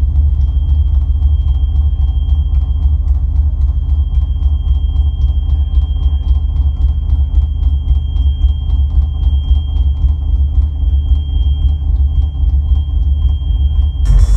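Ambient electronic drone music played live through a loud sound system: a deep, heavy bass rumble under a thin steady high tone and faint rapid ticking. Just before the end the texture shifts abruptly to a brighter, hissier sound.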